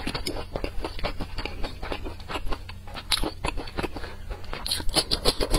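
Close-miked chewing with the mouth closed: a steady run of small wet clicks and crunches, which get louder and crisper near the end.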